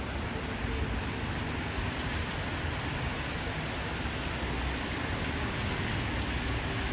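Steady city traffic noise on rain-wet streets: an even hiss of tyres with a low rumble underneath, and no single event standing out.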